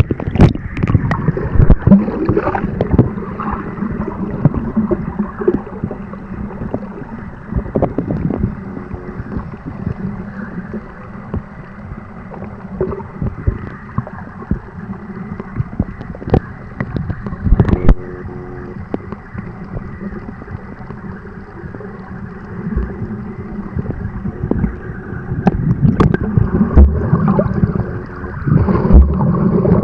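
Muffled water sloshing and gurgling against a camera's waterproof housing as it moves underwater and through the surface, with scattered knocks. The sloshing is heavier at the start and again near the end.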